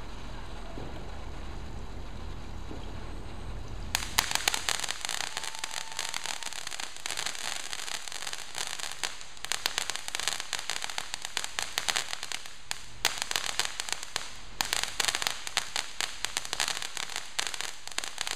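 Ground fountain firework spraying sparks; about four seconds in it breaks into dense crackling, a rapid run of small pops that keeps going with a couple of brief lulls.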